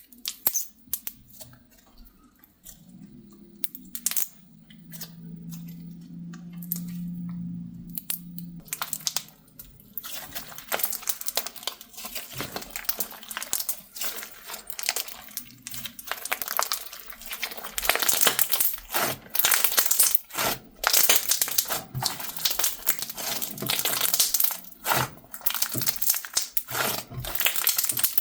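Slime with crunchy add-ins being pressed and stretched, making crackling, popping clicks. The clicks are sparse at first and become dense and continuous after about ten seconds.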